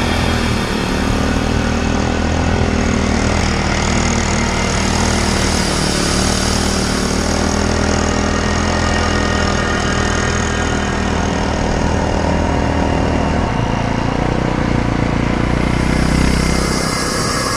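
Irbis Dingo T150 snowmobile's small four-stroke single-cylinder engine running steadily as it rides through deep snow. The engine grows louder and higher shortly before the end as the machine passes close by, then drops away.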